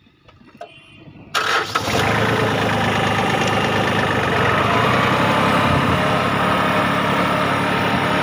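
Farm tractor engine starting about a second and a half in, then running steadily and loudly.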